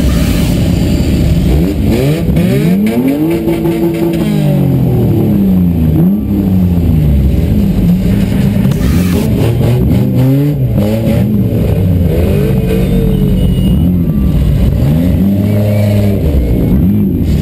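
Several car engines revving up and down over a steady idle, heard from inside a car's cabin, as a pack of derby cars sits with throttles blipping.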